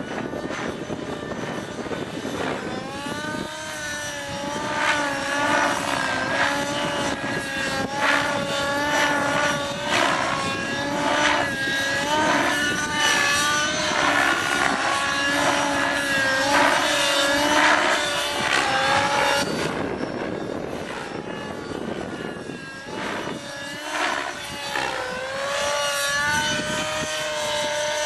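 Align T-Rex 600 nitro RC helicopter in aerobatic flight: its glow engine and rotor run with a pitch that keeps bending up and down as it manoeuvres. The sound drops away for a few seconds about two-thirds of the way in, then comes back.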